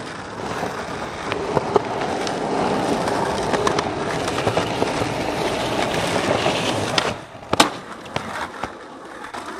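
Skateboard wheels rolling over rough, cracked asphalt with a steady grinding rumble. About seven and a half seconds in, the rolling drops off and there is one sharp loud clack, followed by a few lighter clicks.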